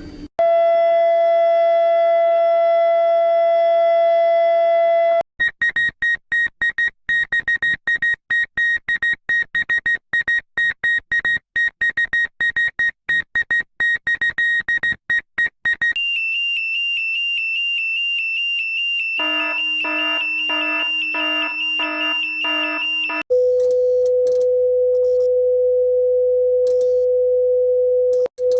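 A run of electronic emergency-alert tones that switch every few seconds. First comes a steady tone with overtones. Next is a high beep pulsing rapidly for about ten seconds, then a high steady tone that is joined near the end by pulsing lower tones. The run ends on a steady lower tone over a low hum.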